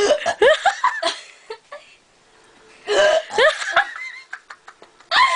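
A person's short, hiccup-like vocal bursts and giggling laughter, in clusters: one at the start, another about three seconds in, and a third starting near the end.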